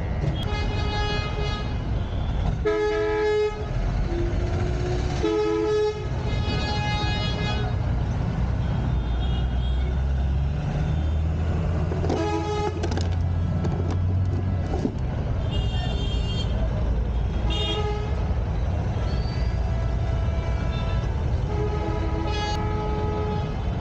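Street traffic with vehicle horns honking again and again, some short toots and some longer blasts, over the steady rumble of running engines.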